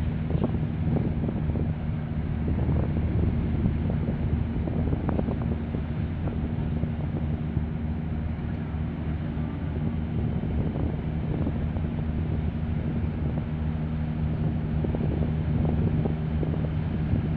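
Low, steady drone of a container ship's engines under way, a few even tones held throughout, with wind rumbling on the microphone.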